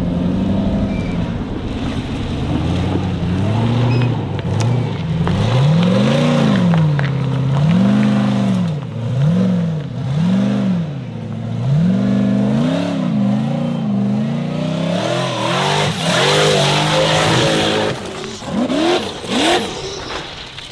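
Formula offroad buggy's engine revving hard up and down over and over as the paddle-tyred car claws up a steep dirt hill, with a burst of quick sharp revs near the end.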